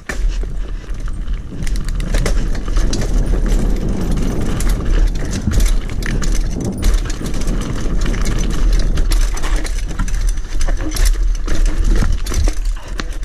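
Mountain bike ridden fast down a dirt forest trail, heard from a camera on the bike or rider: a heavy low rumble of wind and tyres on dirt, with frequent rattles and clicks from the bike's chain and frame over the bumps.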